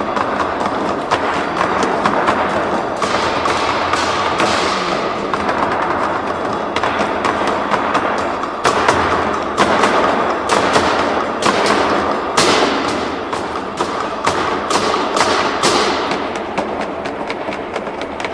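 Chinese drum ensemble playing rapid, dense strikes, with brighter ringing crashes standing out every few seconds.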